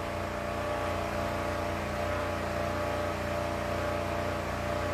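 A machine running steadily with a constant, even hum.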